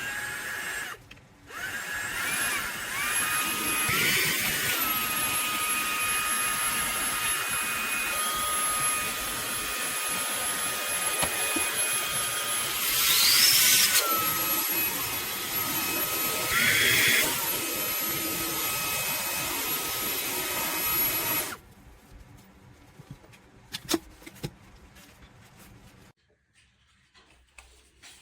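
Fanttik V8 Apex cordless handheld car vacuum's small motor running with a steady high whine: a brief blip at the very start, then switched on, its pitch wavering now and then. It cuts off suddenly about three quarters of the way through, leaving a few faint clicks.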